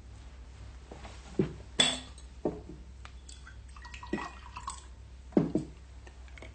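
Glasses and dishware clinking and knocking, five or six separate strikes, a couple ringing briefly.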